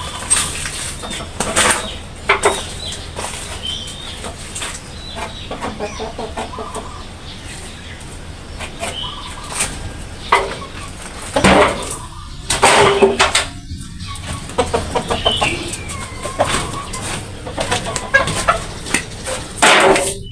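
Chickens clucking, with wings flapping and scattered knocks and clatter. The noisiest stretch comes a little past the middle.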